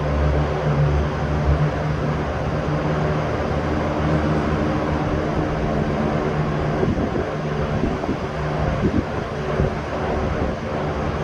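Electric fan running steadily: an even rush of moving air with a steady motor hum underneath, and a couple of brief low bumps past the middle.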